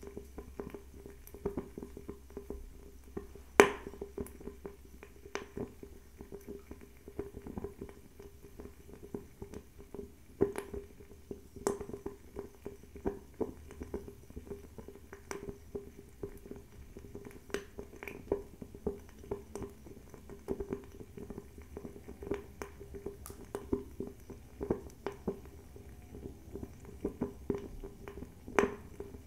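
Höfats Spin 90 bio-ethanol table fireplace burning: irregular sharp crackles and ticks over a steady low hum, with the loudest crack about three and a half seconds in.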